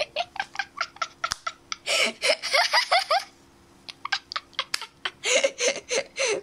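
Laughter: a quick run of short giggling bursts, then breathier laughs after a second or so and again near the end.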